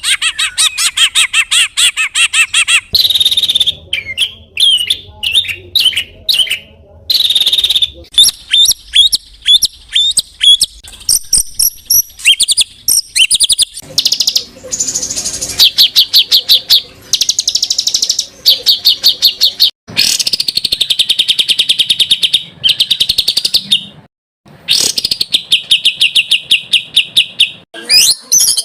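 Songbird tutoring recording: a run of different songbirds' loud, rapid trills, chattering runs and high whistles, spliced one after another so the song type changes abruptly every few seconds, with two brief gaps.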